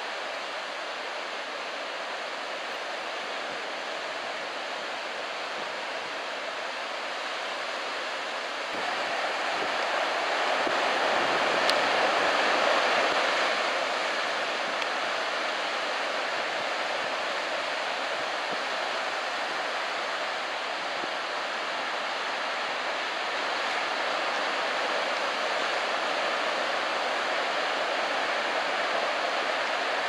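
Ocean surf breaking on a beach: a steady wash of waves and whitewater, swelling louder for a few seconds around the middle.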